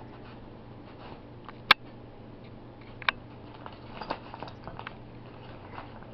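Jack Russell terrier nosing and tearing at wrapping paper and a small paper gift box: scattered crinkling and crackling of paper, with a sharp click just under two seconds in, another about three seconds in, and a run of small crackles after that.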